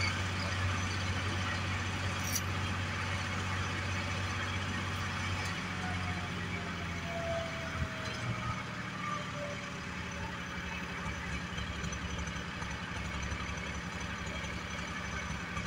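Engine of a 1962 Priestman Cub 5 crane running steadily as the hook is worked. Its note shifts about six seconds in, and a single knock near eight seconds comes with a faint falling whine.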